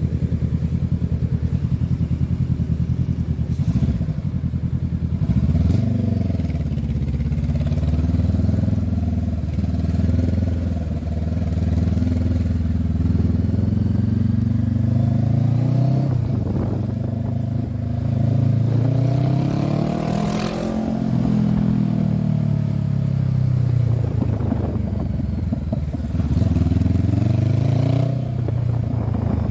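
2023 Honda CB500F's parallel-twin engine running as the bike is ridden: steady at first, then revving up and easing off several times, with the highest rise about twenty seconds in.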